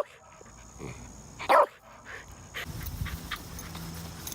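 A dog barking: two short, sharp barks, one at the start and one about a second and a half later, followed by a low rustling rumble.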